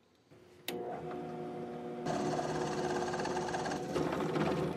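Benchtop drill press switching on with a click about half a second in, its motor running with a steady hum. From about two seconds in, the bit drilling into metal adds a rough, hissing cut on top of the hum, easing off near the end.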